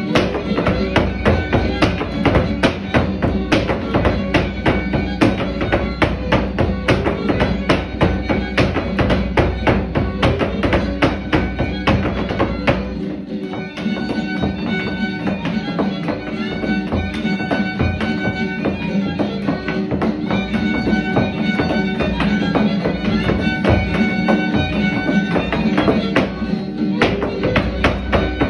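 Traditional Mexican son music with violin and guitar over a fast, steady beat of sharp strikes.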